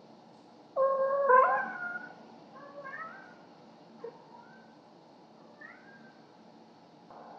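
Domestic cat yowling while bringing a toy to its owner as a "gift". There is one loud, drawn-out yowl with bending pitch about a second in, then a few fainter short meows, and a small click near the middle.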